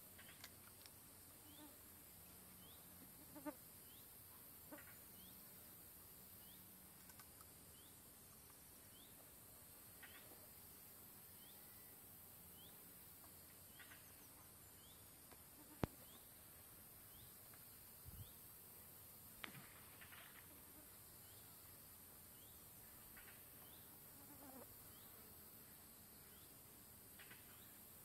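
Quiet outdoor ambience: a faint high chirp repeated about every second and a half, scattered short bird calls and a steady high hiss. A sharp click stands out about halfway through, with a smaller one a few seconds later.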